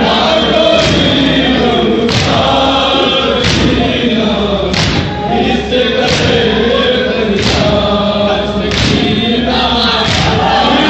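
Large crowd of men chanting a mourning lament in unison, with a loud collective thump of hands beating on chests about every 1.3 seconds, keeping the beat of the chant.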